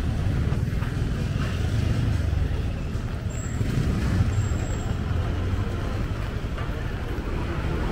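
Steady low rumble of motor traffic, with two short, faint high-pitched tones about halfway through.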